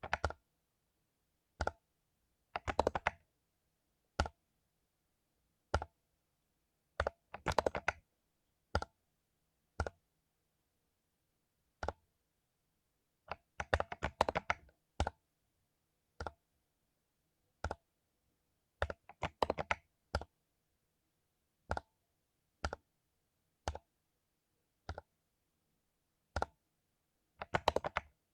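Mechanical keyboard with lubed Cherry MX Silver linear switches being typed on: single keystrokes and short flurries of several keys, with pauses between them.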